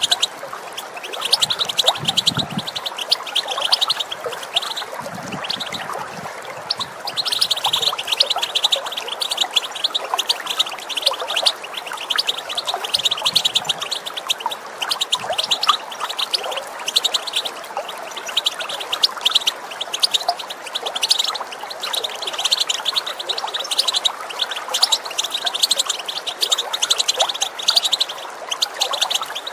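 European goldfinches twittering in a rapid, continuous chatter of short high notes over the steady sound of running water.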